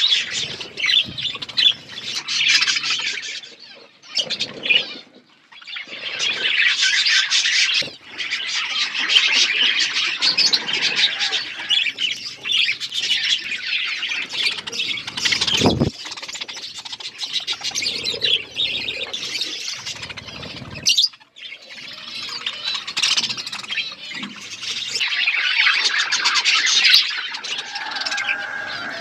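A flock of budgerigars chattering, a dense mix of chirps, warbles and squawks, broken by short pauses twice. There is a single dull knock about halfway through.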